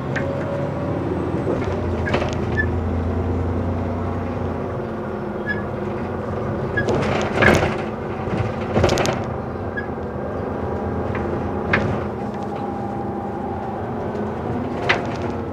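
Double-decker bus in motion, heard from inside: a steady engine and road drone with the bodywork and fittings rattling, and sharp knocks, the loudest about seven and a half and nine seconds in.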